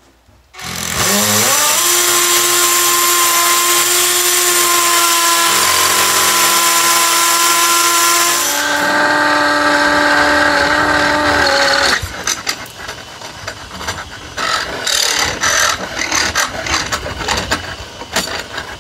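Cordless drill driving a long half-inch masonry bit into the brick wall: the motor spins up with a rising whine about a second in and runs steadily, its pitch dropping under load at around nine seconds. From about twelve seconds the steady whine gives way to uneven rattling and knocking.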